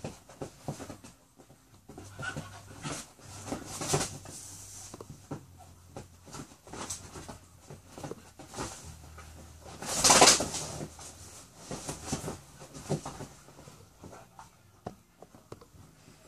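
A dog and a rooster scuffling on a leather couch, with many quick scrabbling and rustling sounds and a loud flurry about ten seconds in.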